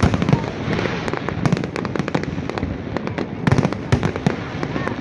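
Fireworks display: many sharp bangs and crackling pops from bursting shells, going on without a break, with the densest, loudest bursts near the start and again about three and a half seconds in.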